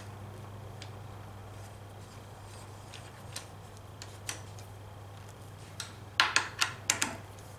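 Allen key clinking against the handlebar riser and bolt head as the riser bolt is run in by hand: a few faint clicks, then a quick run of about five sharp metallic clicks near the end, over a steady low hum.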